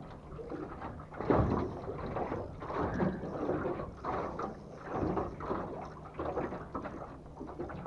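Small fishing boat on the water: irregular knocks and sloshing against the hull, the loudest knock about a second in, over a faint steady low hum.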